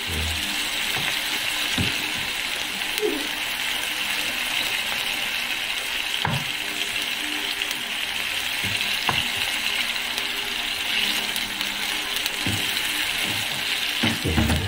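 Canned mackerel frying with onion and garlic in oil in a nonstick pan: a steady sizzle, with a plastic spatula scraping and knocking against the pan now and then as the fish is mashed and broken up.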